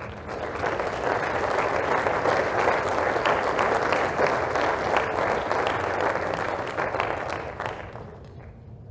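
Audience applauding in an auditorium, many hands clapping together. It starts right away and dies away at about eight seconds.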